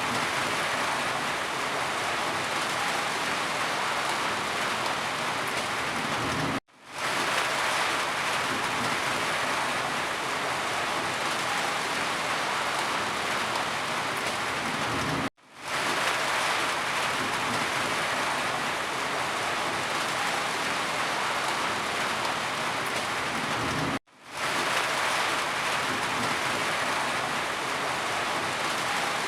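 Steady rain falling, an even hiss of many drops. About every nine seconds it cuts out for an instant and fades straight back in, three times in all, as a short recording loops.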